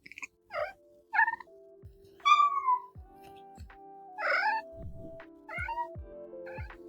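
A Munchkin cat meowing about six times in short calls, with one longer meow falling in pitch about two seconds in, over background music with sustained notes and a low beat.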